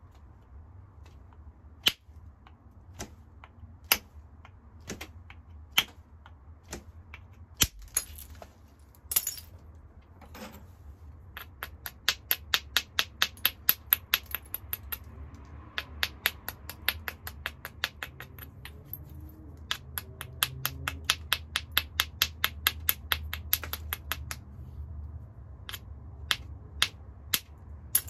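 Small hammerstone working the edge of a hornstone biface, stone on stone: a few separate sharp clicks about a second apart, then quick runs of lighter clicks at about five a second.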